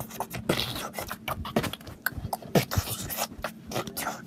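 A child beatboxing: quick, uneven mouth clicks and short hissing bursts, several a second.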